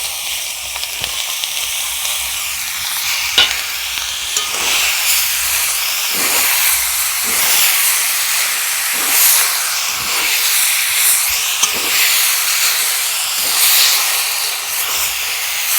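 Wet chopped taro leaves sizzling in hot mustard oil in a kadai, with a steady hiss as their water cooks off, while a spatula stirs and scrapes them about once a second.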